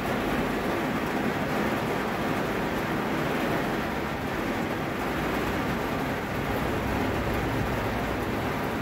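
Heavy rain falling on a car, heard from inside the cabin: a steady, even rush of noise.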